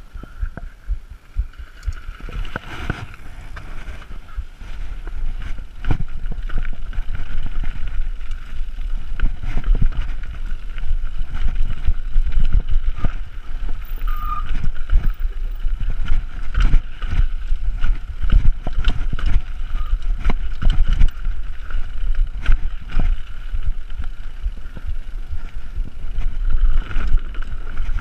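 Mountain bike riding fast down a rough forest trail: wind buffeting the camera's microphone as a low rumble, with constant rattling and knocks from the bike over roots and wooden trail features, and a steady high buzz. It gets louder a few seconds in as speed picks up.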